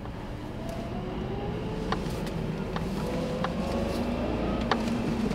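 A vehicle moving, heard from inside, with a low running rumble and a faint whine that rises slowly as it picks up speed. A few sharp clicks or knocks come at irregular moments.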